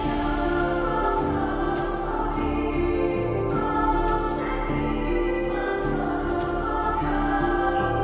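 Background music of slow, sustained chords.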